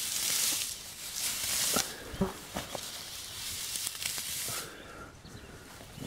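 Dry grass rustling and tearing as it is pulled up by hand, with two louder rustling bursts in the first two seconds, then softer crackling.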